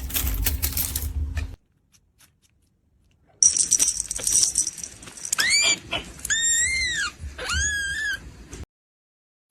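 Kitten mewing three times in high-pitched, arching calls over a rustling background. Before the calls, a short stretch of noise with a steady low hum cuts off suddenly.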